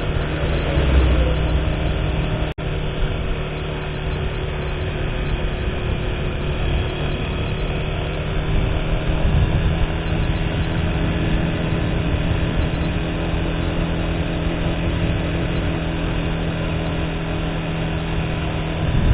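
Motorcycle engine running steadily at cruising speed, with wind and road noise from riding. The sound cuts out for an instant about two and a half seconds in.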